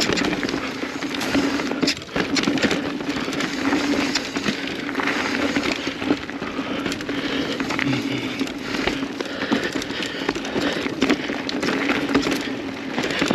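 Kona Process X mountain bike riding down a dirt trail: tyres crunching over dirt and rocks, the bike rattling with many sharp clicks, over a steady low hum.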